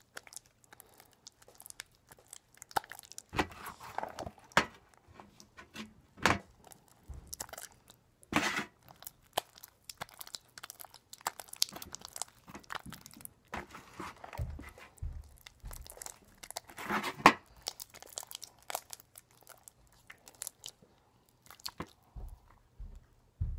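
Homemade glue-and-borax slime squeezed and kneaded by hand, giving irregular wet squelches and crackles with short pauses between them. The slime is still gloppy, not yet fully set.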